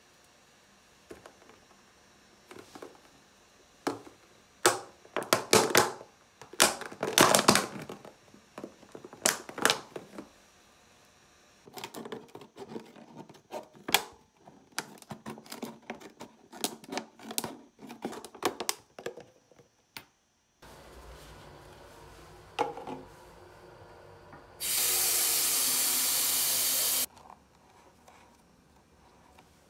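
Thin plastic water bottle being cut with scissors and crushed in the hands: irregular crinkling, crackling and snipping. Later a loud, steady hiss runs for about two seconds and cuts off suddenly.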